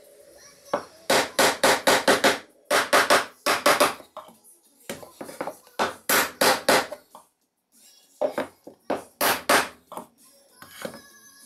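Hammer strikes on wood, in quick runs of three or four blows with short pauses between the runs, over background music.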